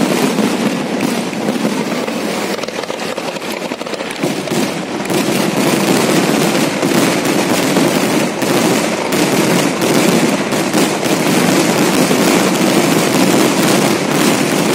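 Fireworks display going off in a dense, continuous barrage of rapid crackling and bangs, with a slight lull about four seconds in.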